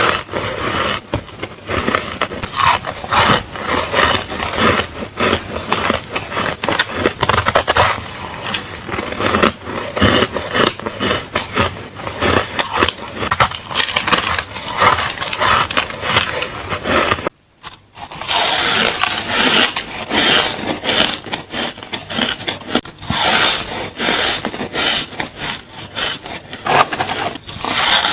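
Crunchy ice being bitten and chewed close to the microphone: dense, continuous crunching and cracking, with a brief break about seventeen seconds in.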